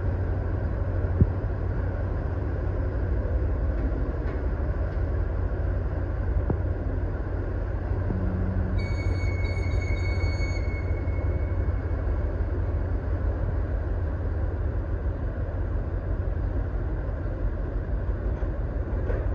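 Low, steady rumble of a large container ship's engine and propeller as the ship passes close by.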